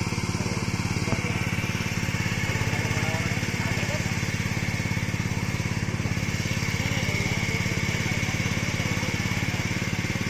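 Small engine running steadily at constant speed, with an even rapid pulsing.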